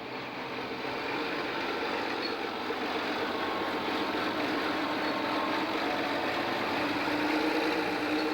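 Large John Deere tractor's diesel engine running steadily as it drives past. The sound grows louder over the first few seconds as the tractor draws near.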